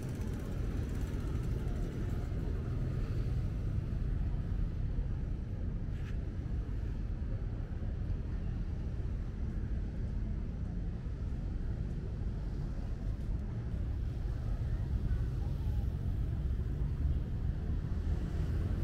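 Steady low rumble of passing road traffic, with one brief click about six seconds in.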